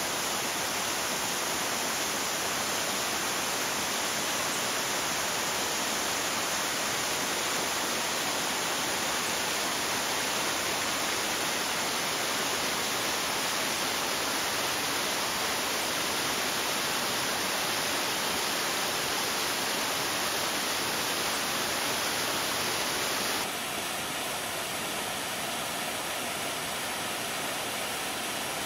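Mountain waterfall cascading over rock: a steady rush of falling water that drops a little in level and changes tone about three quarters of the way through.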